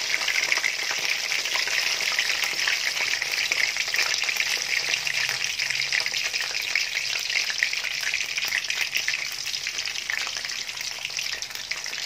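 Lumpiang Shanghai spring rolls deep-frying in hot oil in a wok: a steady, dense crackling sizzle that gets a little quieter over the last few seconds.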